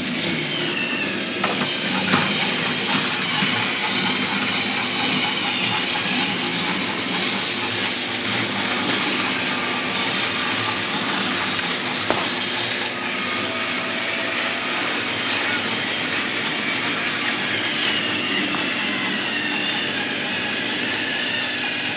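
Several battery-powered TrackMaster toy trains running at once on plastic track: a steady whirring of their small electric motors with a continuous rattling clatter of wheels and cars on the track.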